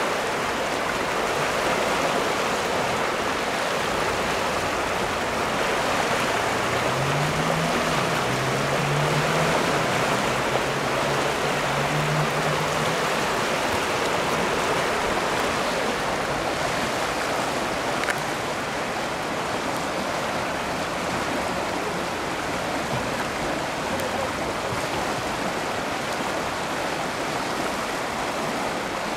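The River Stour in flood after heavy rain, its fast, swollen current rushing and churning through breaking standing waves in a steady wash of water noise, easing slightly about two-thirds in.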